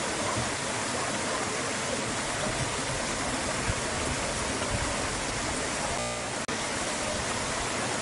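Water flowing and splashing over boulders in a shallow rocky stream, a steady rushing; the sound briefly drops out about six and a half seconds in.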